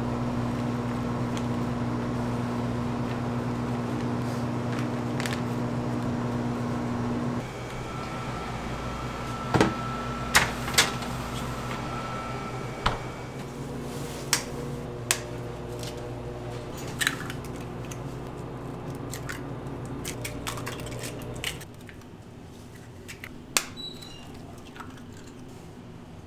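Kitchen working sounds: a steady electric hum of machinery with scattered sharp clinks and knocks of utensils and metal pans being handled. The hum drops about seven seconds in and again near the end.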